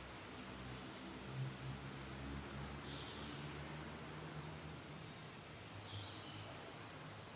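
Background wildlife: short high-pitched chirps about a second in and again near six seconds, with a steady shrill high tone lasting about two seconds between them, over a faint low hum.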